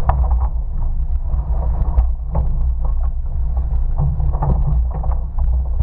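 Heavy wind buffeting on a boat-mounted camera microphone, with surf water rushing and splashing as another surf boat crashes down onto the boat. Irregular sharp knocks and splashes come through the rumble, the strongest just after the start and about two seconds in.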